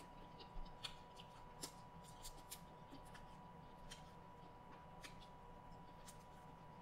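Faint, scattered crackling clicks of fingers peeling the shell off a cooked shrimp.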